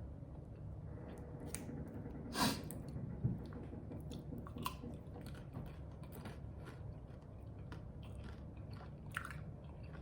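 A person chewing food close to the microphone: soft wet mouth clicks throughout, with a louder bite about two and a half seconds in and another about a second later.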